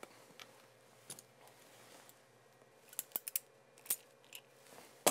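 RJ45 crimping tool being squeezed onto an Ethernet cable's connector: a few short, sharp clicks, bunched together about three to four seconds in.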